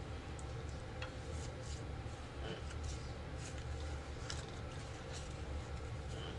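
Faint, irregular light taps and rustles of playing cards being laid down on a table, over a low steady room hum.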